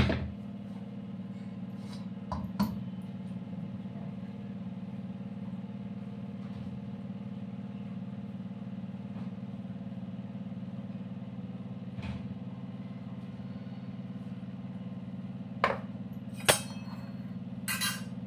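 Steady low hum of an electric motor running, with a few sharp clicks and knocks of metal kitchen utensils, most of them in the last few seconds.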